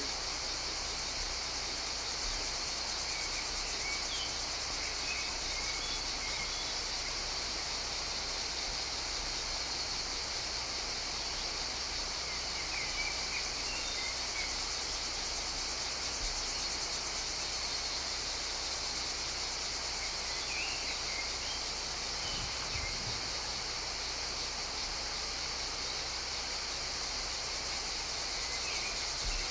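Steady high-pitched insect chorus of trilling crickets or similar insects, with a few short chirps now and then.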